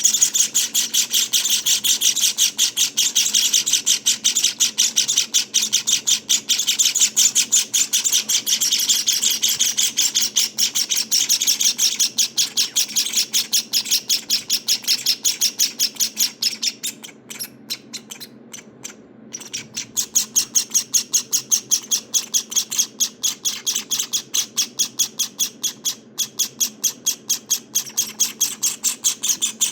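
Java finch nestlings calling in a rapid, unbroken stream of high chirps, many a second. The calling stops for about two seconds just past the middle, then starts again a little softer.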